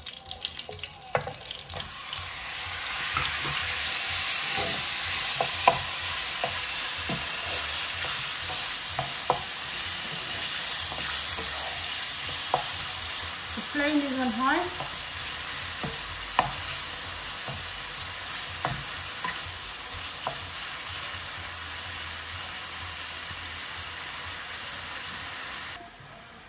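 Cubed raw chicken breast hitting hot oil in a non-stick frying pan: a loud sizzle starts about two seconds in and slowly eases as the meat seals, with a wooden spatula clicking and scraping against the pan as the pieces are stirred. A short wavering tone sounds about halfway through, and the sizzle drops off suddenly shortly before the end.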